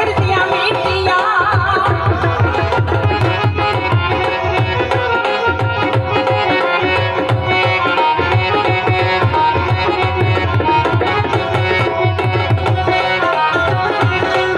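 Live Punjabi folk music in an instrumental stretch: dhol and dholak drumming in a dense, steady rhythm under a sustained melody.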